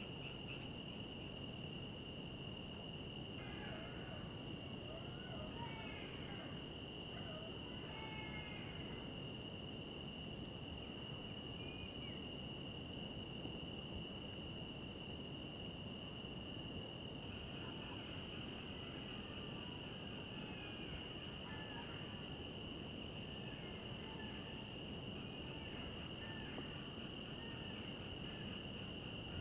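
Night-time cricket chorus: a steady, even high-pitched trilling. Faint short chirps come and go over it.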